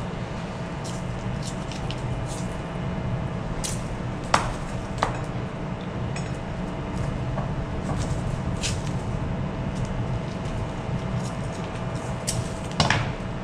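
Steady low drone of ship's machinery with a faint steady tone, broken by a handful of sharp clicks and knocks. The loudest comes about four seconds in and another just before the end.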